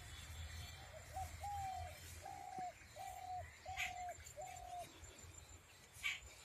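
A bird calling a series of about six short, level hooting notes, evenly spaced, over faint outdoor background noise. Two brief sharp knocks come near the middle and near the end.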